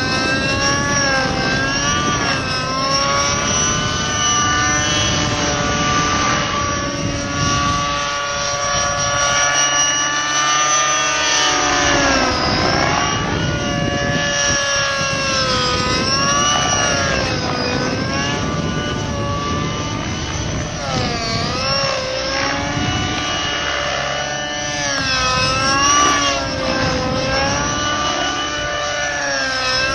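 Align T-Rex 600N radio-controlled helicopter's nitro engine and rotor whining in flight, the pitch swooping up and down again and again as it flies aerobatic manoeuvres.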